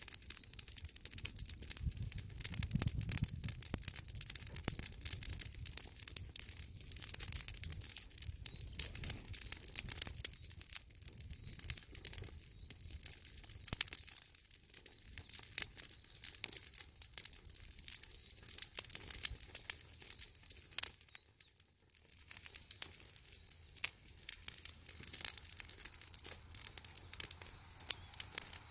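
Dry leaves burning, crackling with a dense, irregular run of small sharp pops.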